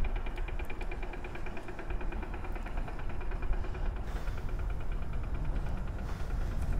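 Ottobock B500 power wheelchair's electric drive running: a faint steady whine with a fast, even ticking over a low rumble from the chair rolling along.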